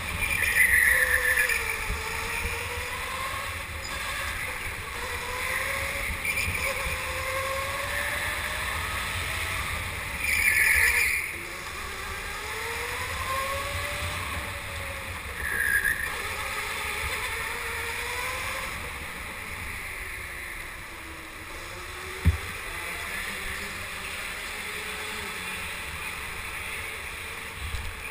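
Go-kart motor whining, its pitch rising and falling as the kart speeds up and slows through the corners, with wind rumble on the onboard microphone. Four short high squeals, tyres scrubbing in the turns, break in, and a single sharp knock comes about 22 seconds in.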